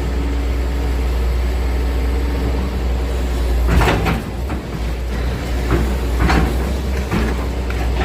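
Excavator engine running with a steady low rumble, with a few knocks and scrapes of demolition, the loudest about four seconds in and three more over the following few seconds.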